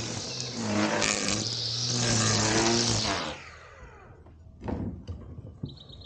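Powered lawn equipment running loudly with a steady hum, then cutting off suddenly about three seconds in, leaving a few light knocks.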